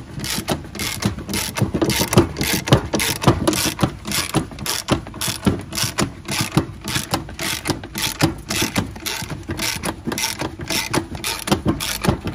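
Ratchet wrench clicking as it turns the threaded spindle of a MacPherson strut spring compressor clamped on a coil spring. It makes a steady run of sharp clicks, about three or four a second.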